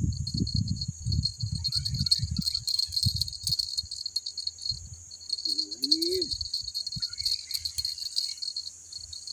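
Steady high buzz of insects, with uneven low wind rumble on the microphone and light clicking; a short low voice-like hum rises and falls about six seconds in.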